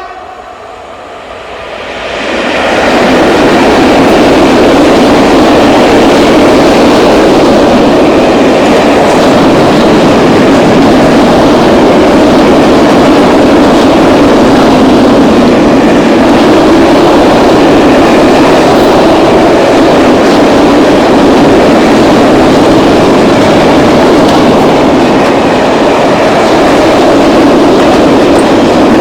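A freight train of Eaos and Eas open wagons loaded with coal slack passing close by. Its wheels rumble on the rails, rising sharply about two seconds in and then staying loud and steady.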